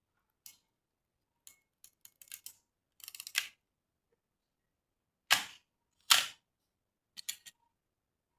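Cosina 35 mm SLR film camera's lever and metal focal-plane shutter worked by hand: scattered small mechanical clicks, a quick run of ticks about three seconds in, then two sharp, loud clacks about a second apart and a few lighter clicks.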